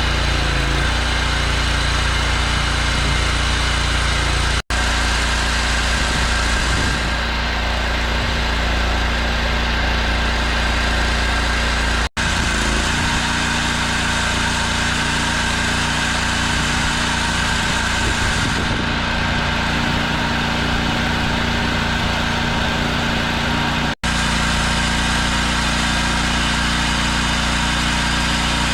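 Chainsaw mill running steadily at full throttle as its chain cuts lengthwise through an oak log, broken off sharply three times for an instant.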